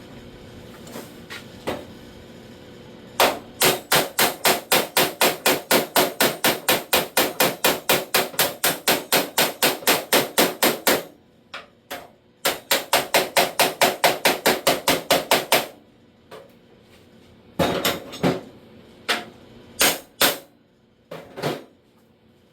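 Hand hammer striking the steel lower door skin repair panel in quick, even blows, about four to five a second in two long runs. A few slower single blows follow near the end.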